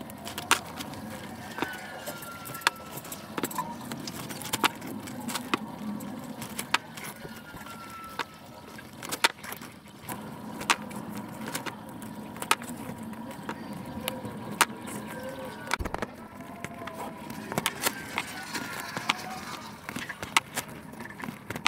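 Hand-stitching a zipper onto a fabric delivery backpack with a hooked hand-sewing needle and waxed hemp thread: irregular sharp clicks and rustles as the needle punches through the fabric and the thread is pulled tight, over a faint steady background hum.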